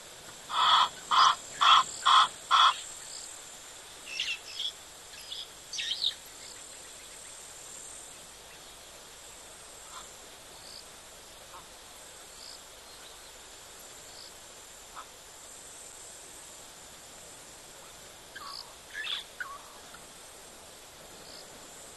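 Night bush sounds: a loud, harsh animal call repeated five times in about two seconds, then a few fainter calls. A steady, high chirring of insects runs underneath.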